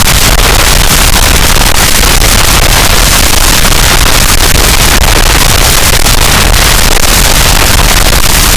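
Harsh noise wall: a dense, unchanging wall of distorted static, very loud and flat in level, with constant crackle over a heavy low rumble.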